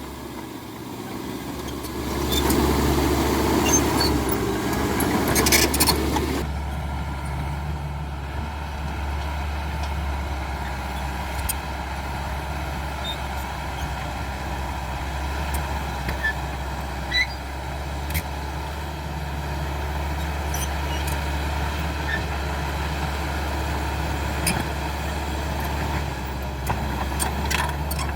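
Caterpillar D5K XL crawler bulldozer running, a steady low engine drone. From about two to six seconds in it is louder and rougher, with sharp clicks, then it settles to quieter steady running with scattered clicks.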